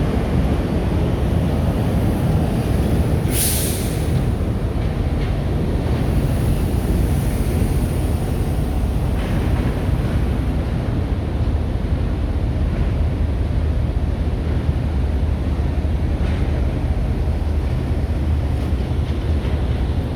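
Steady low rumble of heavy diesel machinery and traffic at road works, with a brief sharp hiss about three seconds in.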